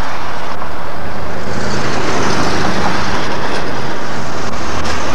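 Motor vehicle engine running close by, a steady low drone over road noise that swells about a second and a half in.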